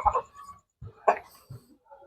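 Chickens calling in short pitched clucks: one right at the start and another about a second in.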